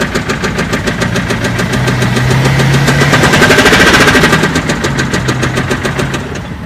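BMW car engine running with a rapid, regular tapping knock, about ten taps a second, growing louder from about two seconds in and easing back after about four seconds. This is the abnormal engine clatter the video is about.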